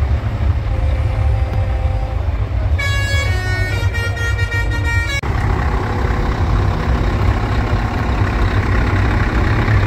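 A truck's musical air horn sounds a short run of stepping notes for about two seconds, a few seconds in, over a steady low rumble.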